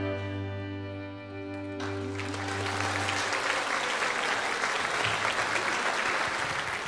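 A chamber orchestra's held closing chord dies away, then audience applause breaks out about two seconds in and carries on.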